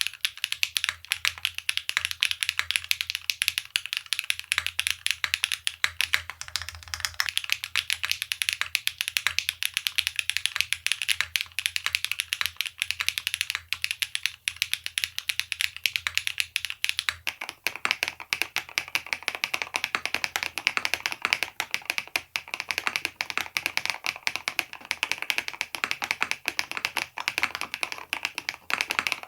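Continuous fast typing on a mechanical keyboard fitted with light-force switches, a dense stream of keystroke clacks. About 17 seconds in, the keystrokes take on a fuller, lower sound.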